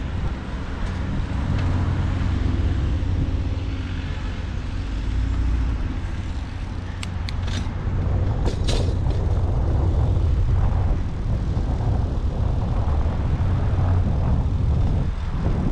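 Steady rumble of wind on the microphone and road noise from a bicycle ride, with city traffic in the background. A few short high clicks come about halfway through.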